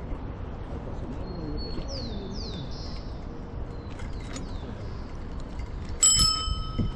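Small birds chirping in quick falling notes over the steady low rumble of wind and road noise from a slowly rolling bicycle; about six seconds in, a single bright metallic ring sounds briefly.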